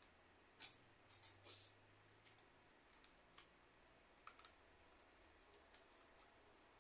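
Scattered light clicks and taps of a smart radiator thermostat's plastic parts being handled during disassembly. The sharpest click comes about half a second in, with small clusters of clicks a second and about four seconds in.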